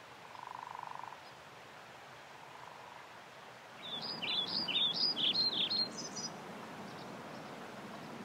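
A small bird chirping: a rapid run of short, downward-sliding notes lasting about two seconds, ending in a few higher notes. A brief steady tone sounds about half a second in.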